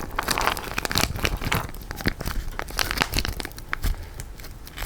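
Plastic packaging of thawed pet food crinkling and rustling with sharp, irregular crackles as it is handled and opened.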